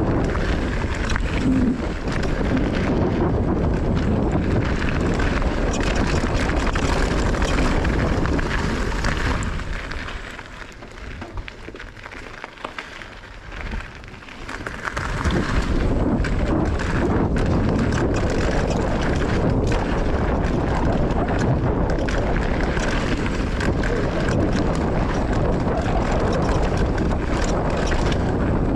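Wind rushing over the camera microphone with the rumble and rattle of a mountain bike's tyres and frame on a dirt freeride trail during a descent. A quieter stretch of about five seconds comes in the middle.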